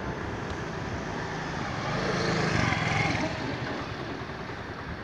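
Engine noise of a passing motor vehicle, swelling to a peak about two and a half seconds in and then fading.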